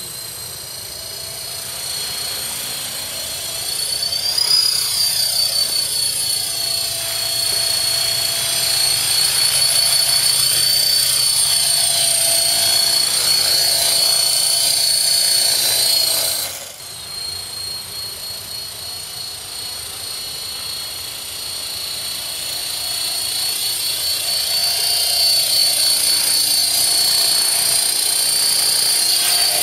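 KDS 450 electric RC helicopter in flight: a steady high-pitched whine of motor and rotor that bends up and down in pitch as it moves about. The sound drops suddenly about sixteen seconds in, then builds again and is loudest near the end as it hovers close.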